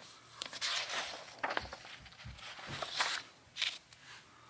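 Paper rustling as a hand slides over and handles printed sheets in a ring binder, in several irregular bursts with a few sharp crackles.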